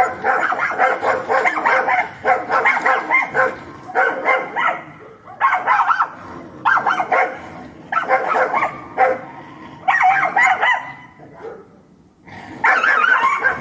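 A pack of dogs barking together, with many barks and yips overlapping. Dense barking at first breaks into separate bursts about a second apart, then eases off briefly before starting up again near the end.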